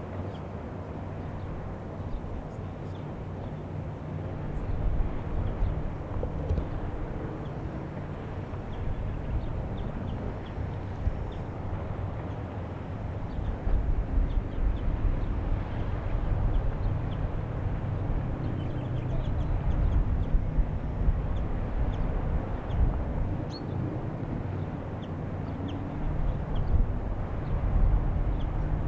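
Wind buffeting the microphone in uneven gusts, with scattered short bird chirps over it and a faint low steady hum underneath.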